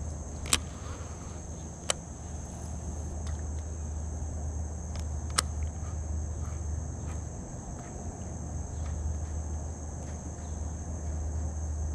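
Steady high-pitched drone of insects over a steady low rumble, broken by three sharp clicks about half a second, two seconds and five and a half seconds in.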